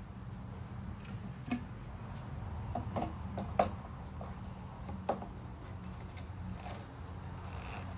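A few short, sharp plastic clicks and taps as PVC hydroponic grow tubes and their end plugs are handled and fitted into the rack, over a steady low hum.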